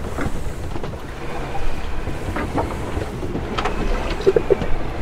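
Wind buffeting the microphone and waves rushing along a Great Dane 28 sailboat running downwind through choppy seas, with scattered short knocks from the boat and two brief squeaks near the end.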